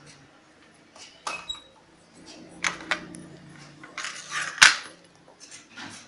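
Small tools and parts handled on a workbench: a few short scrapes and clicks, with a sharp click, the loudest, a little before five seconds in.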